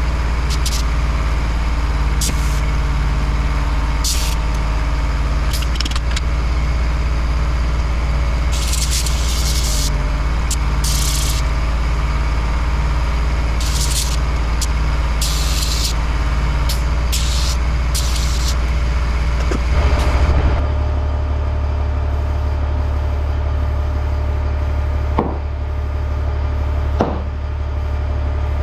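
Air compressor running while short blasts of air hiss from the inflator chuck, filling a motorcycle tire to seat its bead. Later a steadier hum continues, with two sharp snaps near the end.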